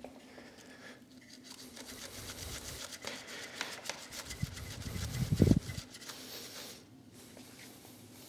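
Scrubbing and wiping at a motorcycle chain: a run of quick scratchy strokes, with a low knock about five and a half seconds in.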